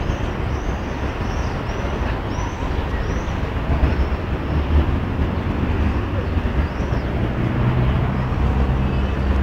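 Steady street traffic rumble, with a faint high chirp repeating two or three times a second during the first few seconds.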